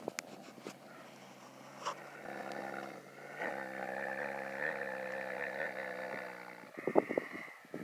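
A dog gives a long, low, wavering howl, part of a morning howling session, lasting about four seconds and starting about two seconds in. Near the end, a few sharp knocks are the loudest sounds.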